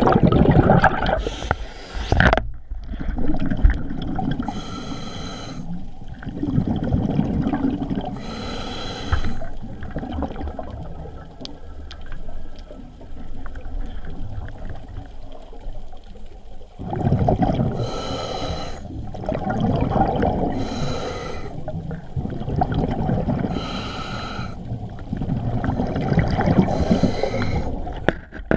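A scuba diver breathing through a regulator, heard underwater: a hiss on each inhale about every few seconds, and a low rush of exhaled bubbles in between.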